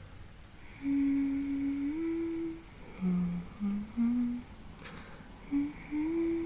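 A woman humming a slow lullaby melody: long held notes, a few shorter lower notes in the middle, then a brief pause before another long held note.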